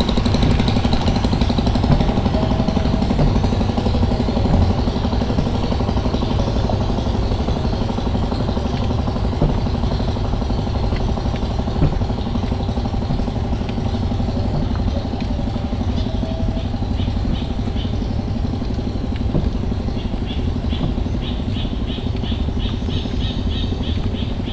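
A small engine running steadily with a low, rapid pulsing. Near the end comes a soft run of regular light clicks, a spinning reel being cranked.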